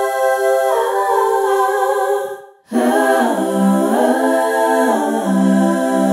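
Wordless vocal music. A long held sung note cuts off about two and a half seconds in, then after a brief gap lower sustained notes step up and down in pitch.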